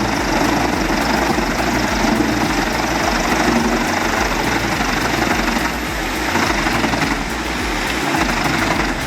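Large diesel-powered log shredder running under load: a steady, heavy engine rumble beneath the dense noise of logs being shredded.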